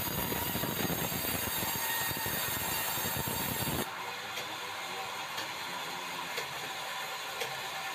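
Sawmill band saw ripping a red meranti plank: a loud, dense cutting noise that stops abruptly about four seconds in as the cut ends. The saw then runs on unloaded, with a light tick about once a second.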